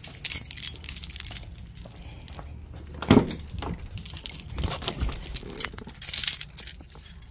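A bunch of car keys jangling, with one loud short knock about three seconds in.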